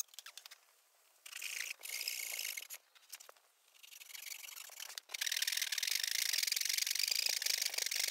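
Japanese flush-cut pull saw cutting wood by hand. It comes in short spells of strokes over the first half, then runs as continuous sawing from about five seconds in.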